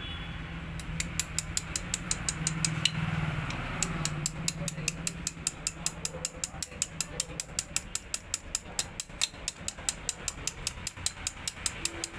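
A small hammer tapping in quick, light, even strokes, about four a second, driving the rocker arm pin into the aluminium cylinder head of a Bajaj Discover 125. Metal on metal, with a short pause about three seconds in.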